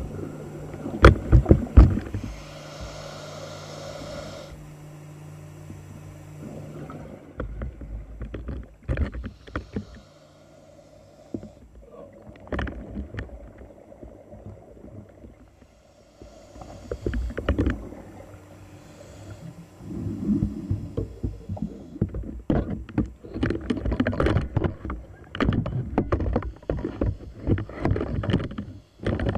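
Scuba-dive ambience: a steady low hum for the first seven seconds, then irregular bursts of bubbling and knocks that grow denser in the second half.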